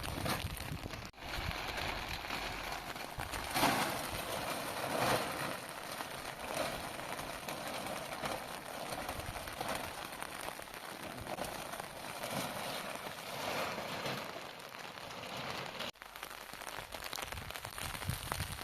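Rain pattering steadily, a dense crackly patter that breaks off briefly twice.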